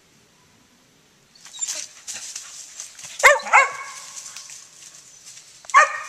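Mountain feist barking, two quick barks and then one more a couple of seconds later, treeing a squirrel. Rustling and crackling through leafy undergrowth starts just over a second in and carries on under the barks.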